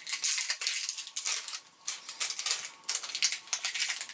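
Plastic wrapping crinkling and tearing as it is peeled off a small toy container by hand, a rapid, irregular crackle.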